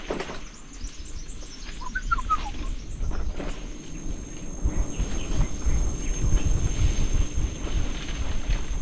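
Rainforest ambience: a steady high-pitched drone with birds calling, including a quick run of four notes about two seconds in. Wind rumble on the microphone from the moving bicycle grows stronger about halfway through.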